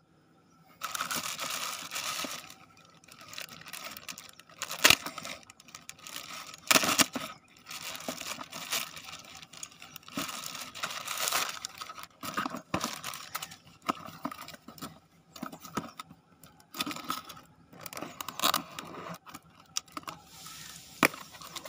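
Plastic courier mailer bag being torn open and crinkled by hand, in irregular bursts of rustling with a few sharp, loud rips.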